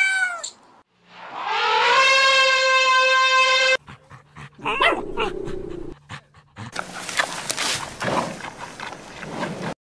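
A run of separate animal calls, dog sounds among them: a short falling cry, then a long drawn-out whine of about two and a half seconds, then short whimpers and sniffs, then a rougher, noisier stretch near the end.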